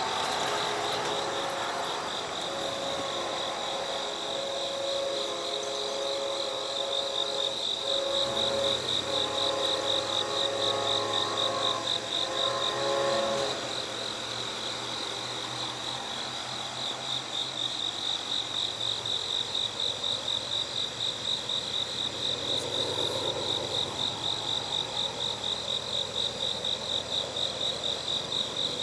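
Night insects chirping in a steady, rhythmic pulse. Over them a distant diesel locomotive's horn sounds a held chord of several tones that stops about 13 seconds in. A low rumble from the approaching locomotive comes in about 8 seconds in.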